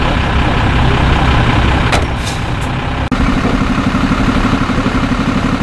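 Fire trucks' diesel engines idling, a steady low rumble that changes about three seconds in to a steadier, more even hum. A brief hiss comes about two seconds in.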